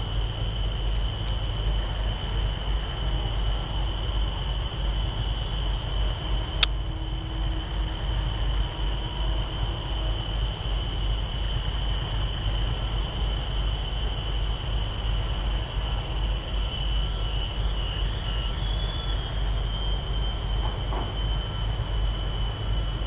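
Steady outdoor background: a constant low rumble under a continuous high-pitched whine at two pitches, with one sharp click about six and a half seconds in.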